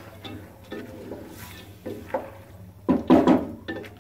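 Wooden spoon stirring and scraping chana dal around an aluminium pressure-cooker pot as the dal fries in masala. The strokes come at uneven intervals, the loudest cluster about three seconds in.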